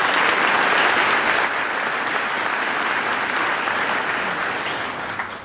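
Audience in a large hall applauding, loudest at first and dying away toward the end.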